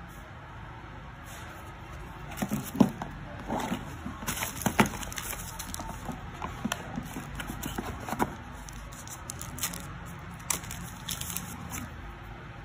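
Hands handling a cardboard phone box and a phone battery in its plastic wrapper: scattered clicks, taps and rustles, the sharpest a couple of seconds in and near the middle, over a steady low hum.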